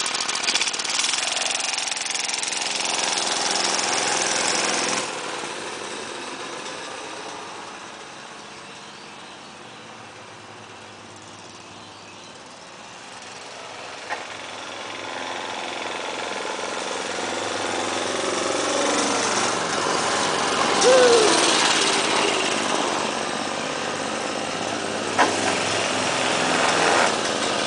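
A mini-bike's small single-cylinder engine running. It is loud at first, drops away about five seconds in and fades to a faint drone as the bike rides off, then grows louder again as it comes back. It is loudest about three-quarters through, where its pitch falls.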